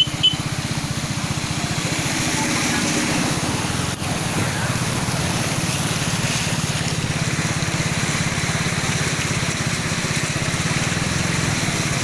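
A motorcycle engine runs steadily as the bike rides through floodwater over a road, with water hissing and splashing around the wheels. Two short, sharp chirps sound at the very start.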